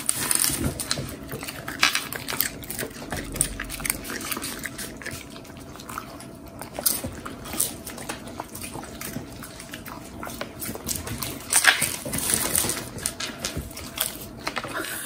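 A Shiba Inu and a mixed-breed dog crunching and chewing popcorn eaten from a hand, close up: irregular crisp crackles with wet mouth smacks, over the light rustle of popcorn being moved on a table.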